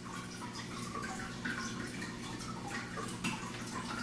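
Liquid poured from a bottle into a glass bowl of raw cut potato strips soaking in water, trickling and dripping in small irregular splashes over a faint steady hum.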